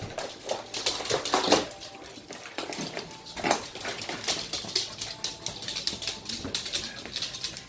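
Dogs' claws clicking and scrabbling on a hardwood floor as they dash and turn, many quick irregular clicks with a few louder knocks.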